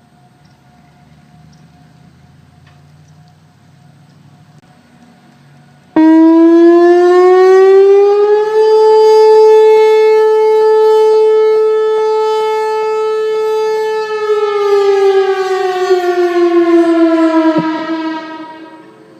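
Whelen Vortex electronic outdoor warning siren sounding a test. It comes in suddenly and very loud about six seconds in, rises in pitch, holds one steady tone for several seconds, then slides down and fades out near the end.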